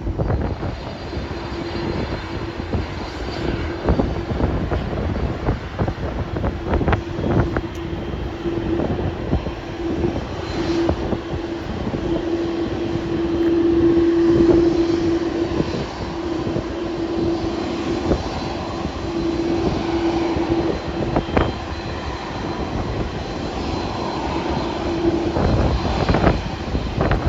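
Jet airliner engines running, a steady tone over a rushing noise that stops about two seconds before the end, with irregular knocks of wind on the microphone.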